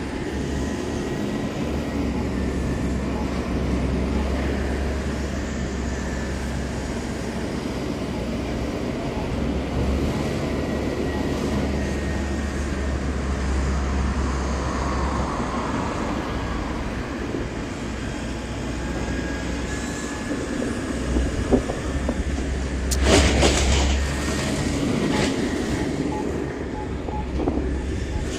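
Heavy demolition machine's diesel engine running steadily with a low rumble. Near the end come a sharp knock and then a louder clattering crash of material being torn out.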